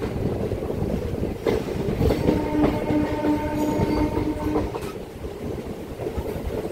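Rumble and clickety-clack of a MEMU passenger train's wheels running over the rails and points, with a few sharp knocks. A train horn sounds one steady note for about two seconds in the middle.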